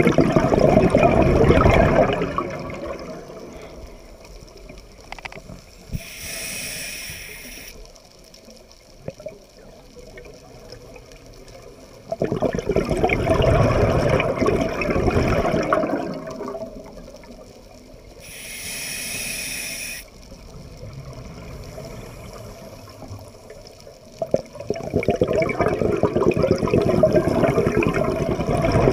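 Underwater, a scuba diver breathes through a regulator: exhaled air bubbles out in three long noisy bursts, at the start, from about twelve seconds in and from about twenty-five seconds in. Between them, two short hisses of inhaled air through the regulator come about six and eighteen seconds in.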